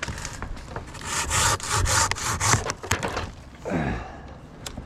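Handsaw cutting wood: a run of quick, regular rasping strokes for about two seconds, then a brief pause.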